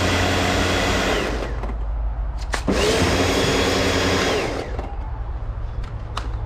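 Small electric motor running in two bursts: the first winds down about a second and a half in, the second spins up under three seconds in and stops after about two seconds, with a few sharp clicks between and after.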